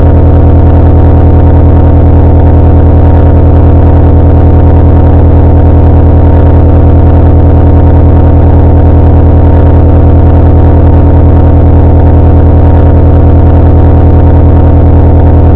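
A very loud, heavily distorted buzzing drone, clipped at full volume. It holds one steady pitch with heavy low harmonics and a fast, even pulsing throughout.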